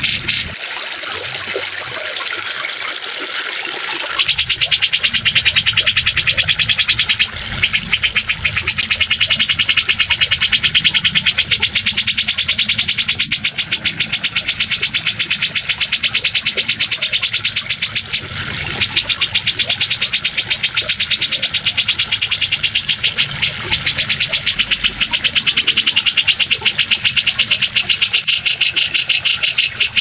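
Grey-cheeked bulbul (cucak jenggot) chattering in rapid, evenly repeated notes over a running-water background. The chatter breaks off for a few seconds about half a second in, then resumes.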